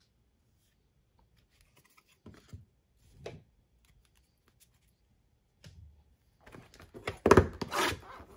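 A few soft handling knocks, then near the end a loud run of scratching and crinkling as the plastic shrink wrap on a sealed trading-card box is cut and torn open.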